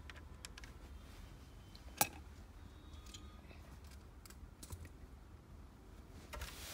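Plastic LEGO bricks clicking and rattling as they are handled, with scattered light ticks and one sharp click about two seconds in. A short rustle comes near the end.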